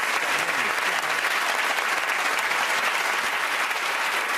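Studio audience applauding steadily, a crowd of many hands clapping at once.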